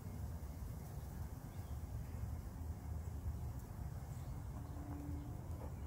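Quiet outdoor background: a steady low rumble, with a faint brief tone about five seconds in.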